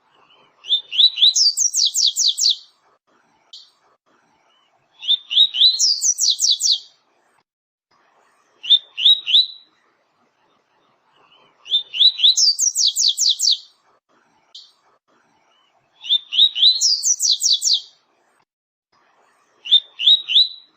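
Double-collared seedeater (coleiro or papa-capim) singing its 'tui-tui' song type. It gives a short, high phrase about every four seconds: a few quick notes, then a rapid run of rising, whistled notes.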